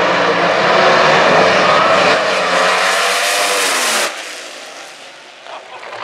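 Supercharged nitro-burning AA/FC funny car engine at full throttle during a drag-racing run, a loud, dense roar whose pitch shifts as the car pulls away; it cuts off sharply about four seconds in.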